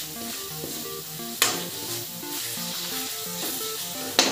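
Masala and chopped tomatoes sizzling as they fry in a steel kadhai, stirred with a metal ladle, at the stage of frying them until the oil separates. A sharp knock comes about a second and a half in and another near the end, and soft background music plays throughout.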